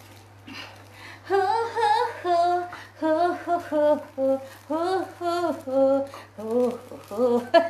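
A woman humming a tune without words, in short notes that rise and fall in pitch, starting about a second and a half in.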